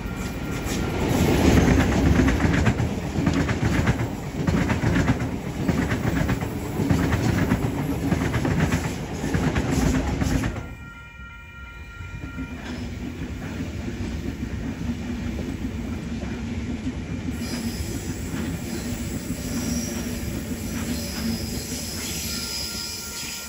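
Electric passenger or freight train passing close by, its wheels clacking over the rail joints. About ten seconds in the sound drops away suddenly and gives way to a quieter, steadier train running with a low hum and faint high wheel squeal.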